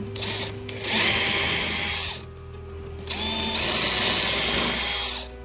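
Cordless drill boring a pilot hole through a hinge's screw hole into a wooden window jamb, run twice: about a second in for a second, then from about three seconds in for two seconds, its motor whine rising as it spins up.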